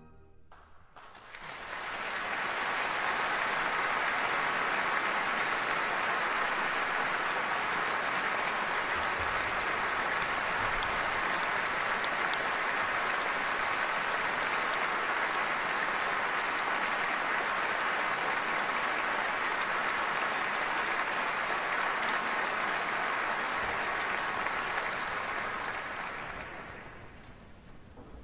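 Audience applauding: dense, even clapping that builds up about a second in, holds steady and fades away near the end.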